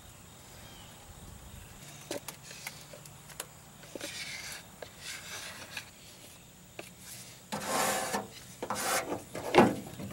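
A flat wooden stir stick scraping and rubbing around the inside of a plastic mixing cup as two-part marine pour foam (part A and part B) is mixed by hand. It starts with a few light clicks, and the scraping strokes grow louder and more vigorous near the end.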